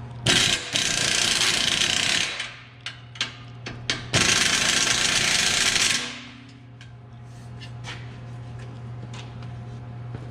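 A power tool runs in two bursts of about two seconds each, with a few sharp metal clinks between them, over a steady low hum.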